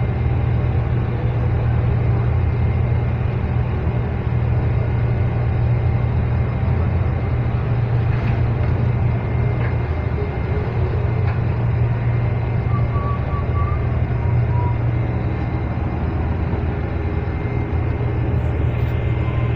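Shrimp trawler's diesel engine running steadily underway, a constant low drone.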